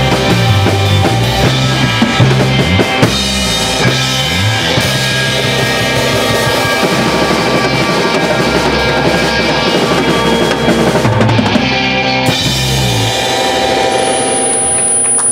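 Live rock band playing: drum kit, electric bass and electric guitar through amplifiers, with the drums to the fore and a bass line stepping between notes.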